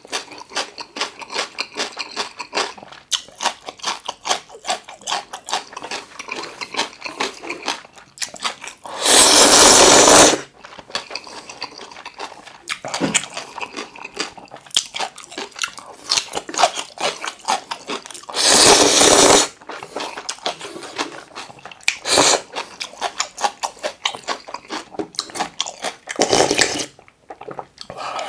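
Close-miked eating sounds of curry ramen and kimchi: steady wet chewing with many small lip-smacking clicks. These are broken twice by loud, long slurps about a second long, and later by two shorter slurps, the last as the bowl is lifted to the mouth.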